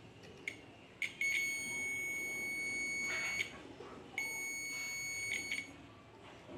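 UNI-T digital multimeter's continuity buzzer beeping as the test probes touch points on a welding-machine driver board. Two brief chirps come first, then a steady high beep of about two seconds, and after a short break another of about a second and a half.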